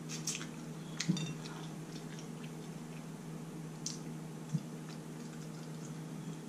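Faint eating sounds: a person chewing, with scattered light clicks and smacks, over a steady low hum.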